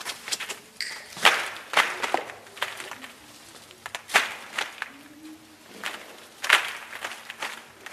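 Dry brushwood twigs rustling, crackling and snapping as bundles of them are handled and pressed down as a twig floor covering in a tent kåta. The crackles come irregularly, with louder snaps about a second in, near two seconds, around four seconds and again late.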